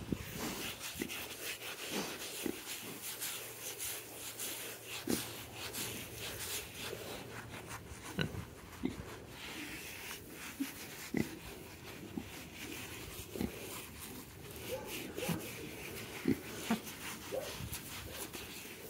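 KuneKune pigs giving short, low grunts at irregular intervals, every second or two, over a steady rustling and scratching of a glove on their bristly coats and of straw underfoot.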